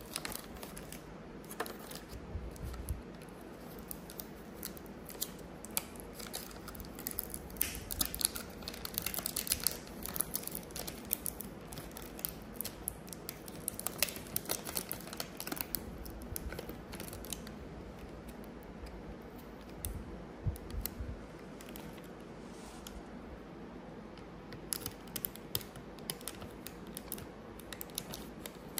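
Clear plastic cup and thin film lid of a pickled sumomo (plum) snack crinkling and crackling as they are handled and the seal is peeled back. The crackling comes in spells, busiest about a quarter to a third of the way in and again around halfway, and thins out later.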